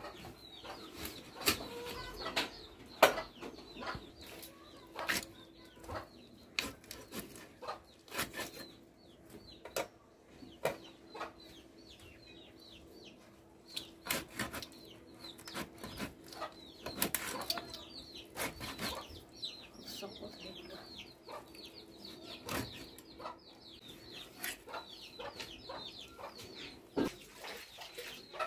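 A plucked chicken being cut against a boti, an upright blade fixed in a wooden base: irregular sharp clicks and knocks of the meat and bones on the blade, with chickens clucking in the background.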